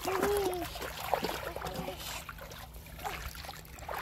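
Shallow muddy water splashing and sloshing irregularly as feet wade through it, with a short voice heard in the first moment.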